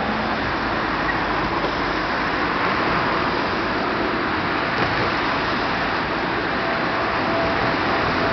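Road traffic on a multi-lane street: cars driving past, a steady wash of tyre and engine noise.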